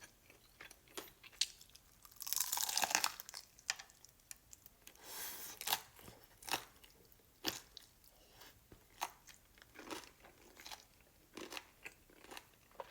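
Close-up bites and chewing of crispy fried chicken: a long crunchy bite about two seconds in, another around five seconds, then irregular crackling crunches as the crispy coating is chewed.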